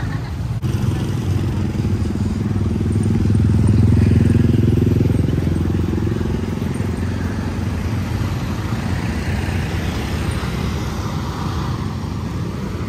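A motor vehicle's engine passing close by in street traffic, growing louder to a peak about four seconds in and then slowly fading.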